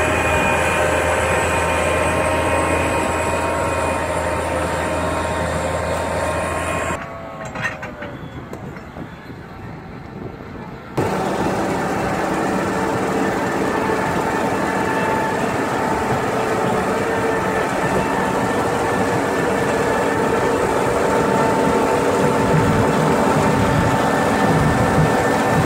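ROPA self-propelled sugar beet harvester running under load, a steady engine drone with a whine from its drives. After a quieter gap of a few seconds, its unloading elevator runs as beets tumble off the end onto the pile.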